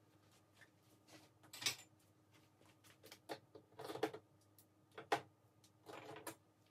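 Irregular knocks and clinks of kitchen items being handled and put away during cleaning, with a few short scraping or rustling bursts.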